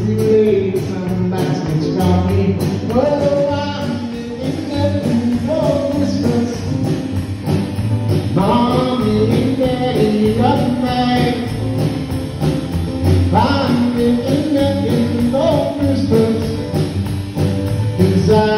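Small live band playing a rock-and-roll song in a hall: electric guitar, drum kit with steady cymbal strokes, and keyboard.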